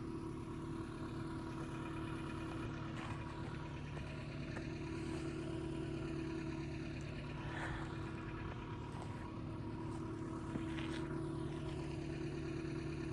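A vehicle's engine running at a steady speed, heard while riding along, with a few faint knocks and rattles.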